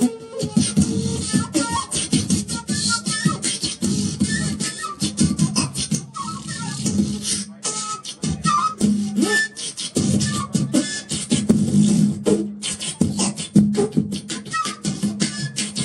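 Beatboxing into a handheld microphone: a fast run of percussive mouth hits and bass sounds, with short notes from a wooden end-blown flute weaving over it.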